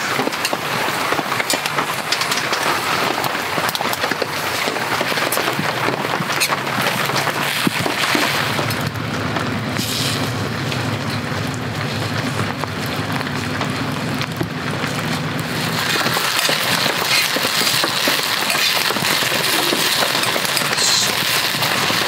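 Steady heavy rain, with marinated pork offal sizzling in a frying pan over a wood fire; the sizzle grows stronger over the last few seconds.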